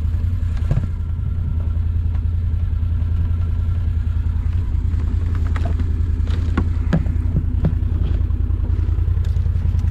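Side-by-side UTV engine running steadily, with a few sharp clicks and rattles from the wire crawfish traps being handled in its cargo bed about halfway through.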